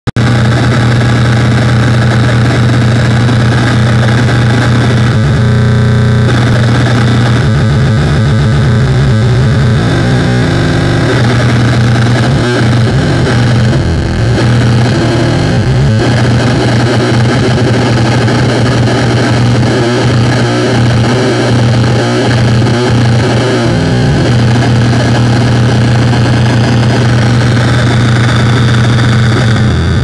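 Homemade dual 555-timer and 4093-chip tone generator putting out a loud buzzing drone with a dense noisy layer over it. Its pitch shifts about five seconds in. Through the middle it breaks into a choppy, stuttering pattern, and near the end it settles back to a steady drone.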